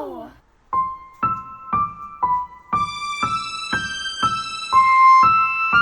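Background piano music: single notes about two a second, growing fuller and richer about three seconds in.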